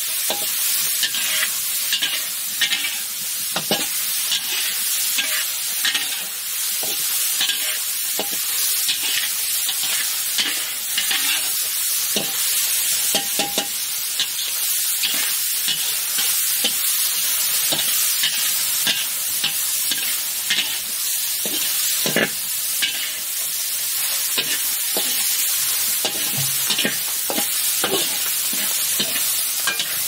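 Sliced shallots and garlic sizzling in hot oil in a steel wok, with a steady hiss, while a metal spatula stirs them, scraping and clinking against the pan again and again.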